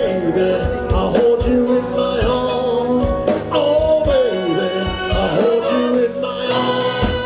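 Live rock band playing, with steady drum hits under a lead melody that slides between notes.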